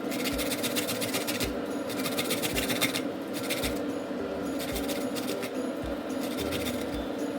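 A small hand grater rasping in quick runs of strokes, each run about a second long with short pauses between, over background music with a soft beat about once a second.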